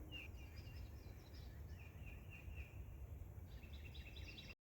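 Faint outdoor ambience with a low rumble and a bird chirping: several runs of short, high, falling chirps, about four a second.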